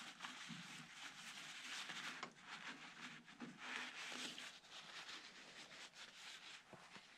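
Faint rustling and rubbing of a paper towel being wiped around the engine box and fuel lines, with small handling clicks.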